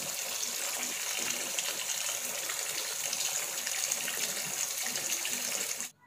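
Kitchen tap running steadily into a stainless-steel sink, the stream splashing over a whole tilapia rinsed by hand; the water sound stops suddenly near the end.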